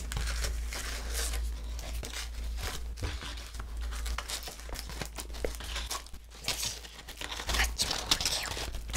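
Sheets of fruit-flavoured edible coloured paper crinkling and crackling in the hands as they are picked up, sorted and pulled apart, with many short irregular crackles.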